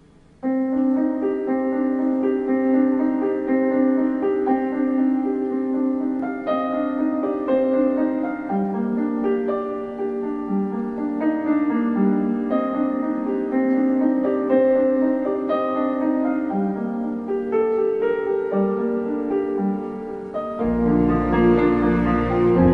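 Background music led by piano, playing a melody of held notes. About twenty seconds in, a fuller, heavier part with deep bass comes in.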